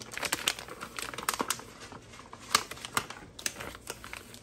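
A paper packet of pizza crust mix crinkling and rustling as it is handled and opened, in many scattered sharp clicks and crackles. Near the end the dry mix is poured into a stainless steel bowl.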